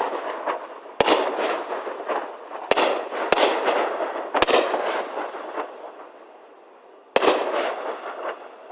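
Aerial fireworks shells bursting: five sharp bangs, each trailing off in a long rolling echo that slowly fades. Three of the bangs come close together in the middle, then there is a lull of about two seconds before the last one.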